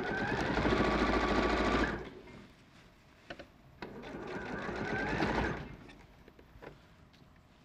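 Sewing machine stitching in two runs: a steady fast burst of about two seconds that stops, then after a short pause a second run that speeds up and stops again, with a few light clicks between and after.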